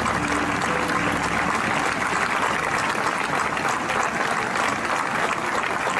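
Audience applauding steadily, with the last notes of the dance music fading out about a second in.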